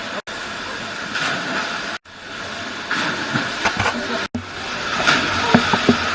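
Rushing water of a waterfall: a steady hiss broken by three brief gaps.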